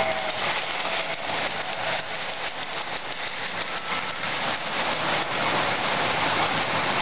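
Electric model trains running on metal three-rail track: a steady clattering rumble of wheels and motors with many fine clicks. A locomotive whistle tails off right at the start.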